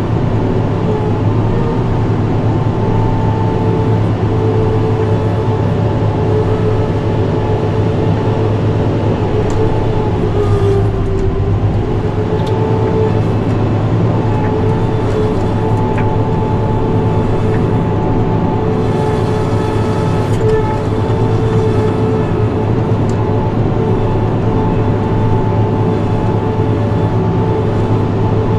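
New Holland tractor's diesel engine and front-mounted snowblower running steadily while throwing snow, heard from inside the cab. The pitch dips briefly about eleven seconds in.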